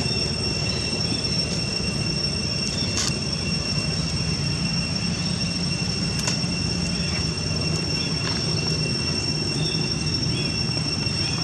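Steady, high-pitched insect drone holding unbroken, like a shrill ringing whine, over a low background rumble, with a couple of faint clicks.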